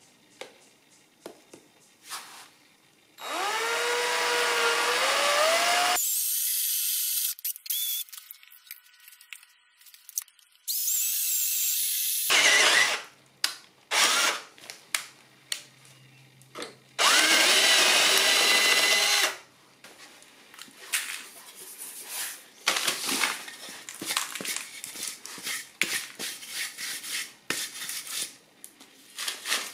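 Cordless drill boring holes through a thin steel plate into a wood block. It runs in several bursts of a few seconds each, the motor whine rising as it spins up. In the last third come many short knocks and scrapes as the wood and steel plate are handled.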